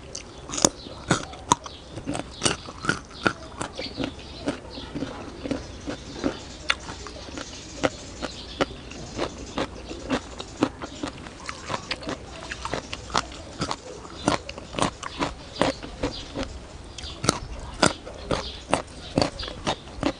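Close-up crunching and chewing of a raw carrot stick dipped in spicy papaya salad: a steady run of crisp, sharp bites and chews, a few a second, with wet mouth sounds between.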